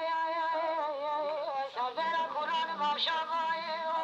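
A single high voice singing a melody, holding wavering notes with short breaks between phrases.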